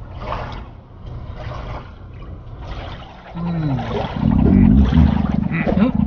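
Sea water washing around a small boat. About three seconds in comes a falling moan, then a loud, low growling rumble, a cartoon stomach growl.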